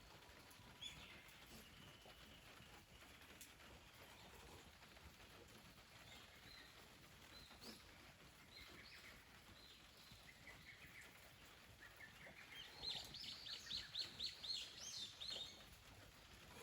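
Wild birds calling: scattered short high chirps, then, about three-quarters of the way in, a quick run of about a dozen short, high, falling notes lasting a couple of seconds.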